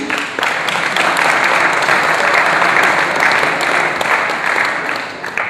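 Audience applauding: a dense patter of many hands clapping, which thins out and fades near the end.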